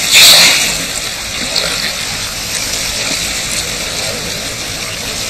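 A seal splashes into the sea from the ice edge, and a steady rush of moving water follows.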